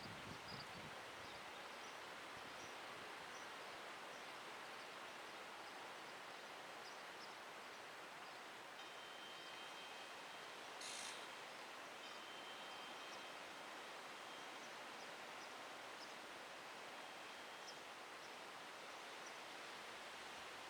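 Faint, steady outdoor background hiss with scattered faint, short, high chirps. There is a low bump at the very start and a brief burst of hiss about halfway through. No siren tone is heard.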